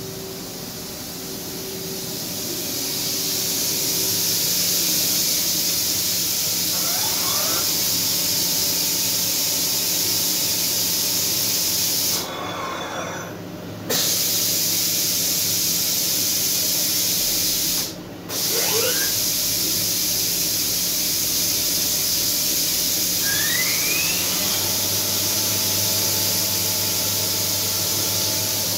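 Smart SM1565 CNC vertical machining center running at its spindle head with a loud, steady hiss over a faint low hum. The hiss builds up over the first few seconds and cuts out suddenly twice, for about a second and a half and then briefly. A few short rising squeaks come through it.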